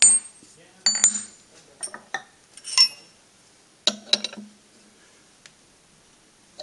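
Steel spanner and tools clinking and knocking against the milling machine table as they are moved and set down: a string of sharp metal clinks over the first four and a half seconds.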